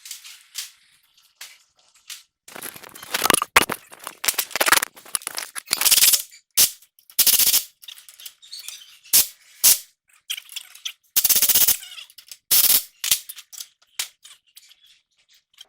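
Loud metal-on-metal hammering and rattling from tools working on a tie rod end, in irregular short bursts with brief pauses, some single clanks and some rapid strings of blows lasting about half a second.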